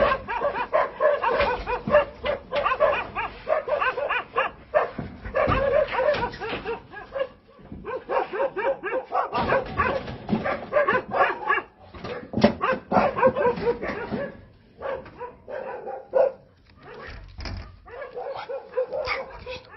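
Dog barking rapidly, in near-continuous volleys with brief pauses, quieter over the last few seconds.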